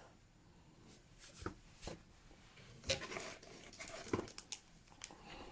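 Light handling noises of paper and packaging being moved on a table: a few soft taps and short rustles over a quiet room.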